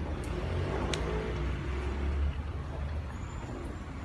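Low rumble of background road traffic that eases after about two seconds, with one sharp click about a second in.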